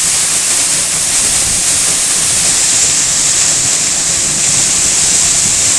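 Eas Mor, a 104-foot waterfall in spate with floodwater, pouring down heavily close by: a steady, loud rush of falling water.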